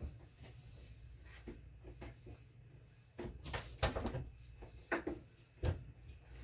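A few light knocks and clatters of things being handled inside a refrigerator while it is lined with paper towel, the loudest just under four seconds in, over a faint low hum.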